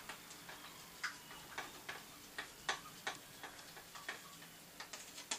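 A metal spoon clinking against the side of a glass while stirring borax into water to dissolve it: light, irregular clinks, about two a second.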